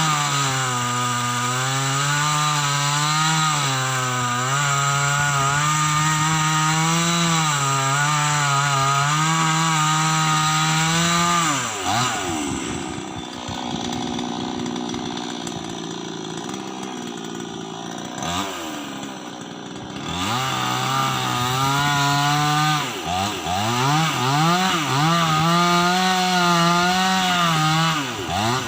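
Chainsaw running at high revs, its pitch sagging and recovering as it cuts into wood. About twelve seconds in it drops back to idle, is blipped once, then revs up again near twenty seconds and cuts on with the pitch repeatedly dipping and surging under load.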